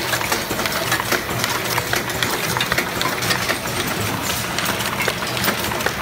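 Automatic ointment-tube cartoning machine running: a steady mechanical clatter of many quick, irregular clicks and knocks over a continuous low hum.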